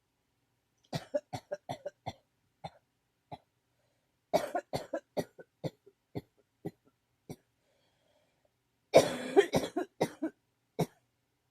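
A person coughing in three fits, each a quick run of short coughs. The first comes about a second in, the next around four seconds in, and the loudest near nine seconds in.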